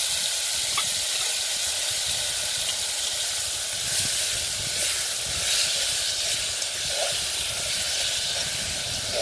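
Onion, bell pepper, scallion, hot pepper, tomato and sausage frying in oil in a pot: a steady sizzling hiss.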